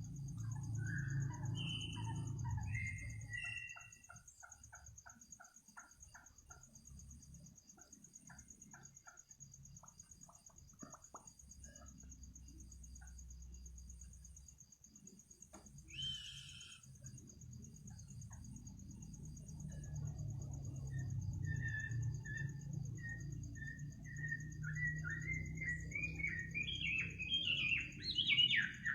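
A bird calling at night with short chirped notes, over a steady high trill of night insects; near the end its notes come faster, louder and rising in pitch. A low rumble sits underneath.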